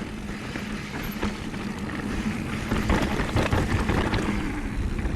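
Downhill mountain bike descending a dirt trail: tyres rumbling over the ground and the bike rattling with many short clicks and knocks, with wind buffeting the microphone.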